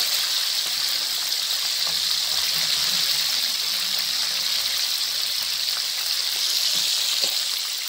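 Pieces of baung catfish deep-frying in a wok of hot oil: a steady sizzling hiss.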